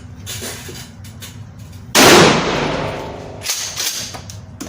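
A single loud gunshot about two seconds in, its echo ringing out over about a second, followed by a couple of much softer sharp cracks.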